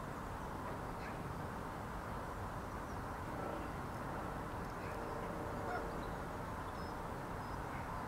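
Steady low outdoor rumble, with faint honking calls of waterbirds twice in the middle.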